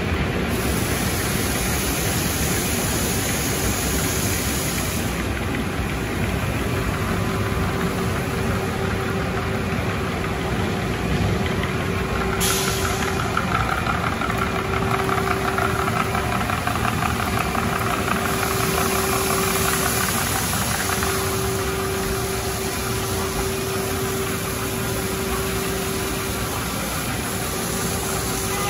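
Automatic car wash tunnel machinery running: a loud, steady wash of mechanical noise with a hum that comes and goes, and one sharp click about twelve seconds in.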